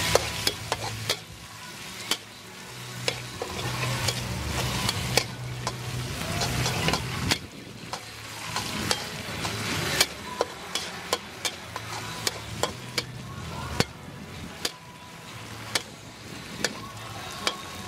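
Wide rice noodles sizzling in a hot steel wok while a metal ladle stir-fries them, scraping and clinking sharply against the wok over and over.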